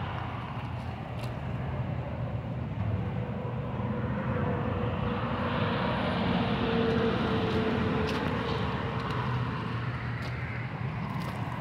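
Steady outdoor drone of a distant engine, swelling a little in the middle and easing off again, with a few faint clicks.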